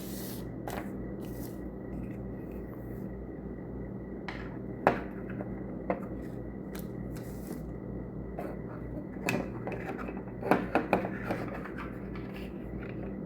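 Light clicks and taps from handling small objects, the sharpest about five seconds in and a short cluster near the end, over a steady electrical hum.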